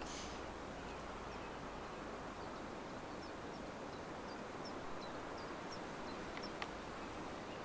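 Countryside ambience: a steady hiss of open air with a small bird giving short, high chirps now and then, and a single sharp click about six and a half seconds in.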